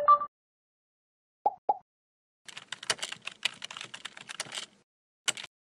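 Computer keyboard typing sound effect: a rapid run of keystrokes lasting about two seconds, as the search text is typed. It is preceded by a short two-note chime and two quick clicks, and followed by a single click near the end.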